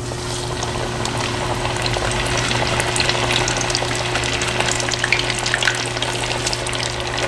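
Breaded chicken tenders going into deep-frying oil at 350°F in a Dutch oven: the oil sizzles with many small crackling pops. It starts suddenly and grows louder over the first few seconds.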